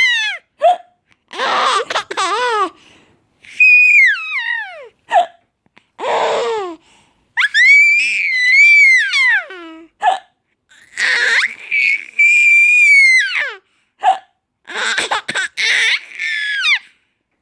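A baby laughing in high-pitched, falling bursts, with short hiccups between them: about four brief hiccups, each followed by another fit of laughter.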